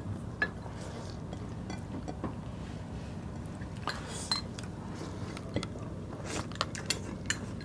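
Eating sounds: a metal spoon clinking and scraping in a small glass bowl of tuna sauce, with chewing and mouth sounds. Scattered light clicks come over a steady low hum, several close together near the end.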